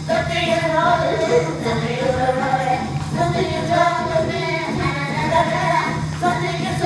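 A woman singing into a handheld microphone, amplified through a small speaker, over backing music.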